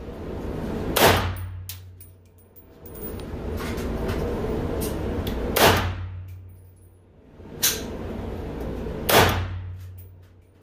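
Four gunshots a few seconds apart, each with a short reverberant ring off the walls of an indoor firing range; the first, about a second in, is from an AK-pattern rifle firing 7.62×39. A steady low hum runs underneath.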